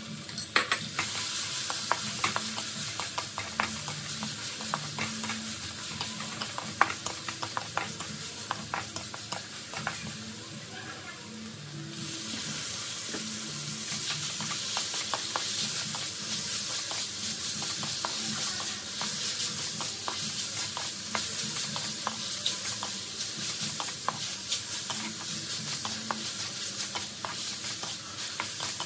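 Stir-fry sizzling in an aluminium wok, with frequent short knocks and scrapes of a wooden spatula against the pan as the food is tossed. The sizzle dips and then comes back louder about twelve seconds in, as wood ear mushrooms and vegetables go in.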